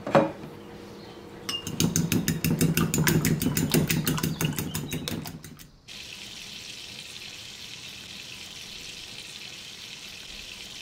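Eggs beaten with a fork in a ceramic bowl: a couple of clinks, then a fast, even run of clinking strokes for about four seconds. After a sudden cut, a steady sizzle of tomato slices frying in olive oil and butter under a glass lid.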